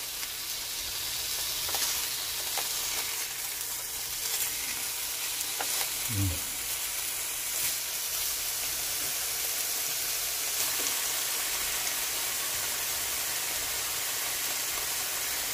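Beef steaks sizzling in a hot nonstick frying pan just after being turned over: a steady hiss with a few light clicks.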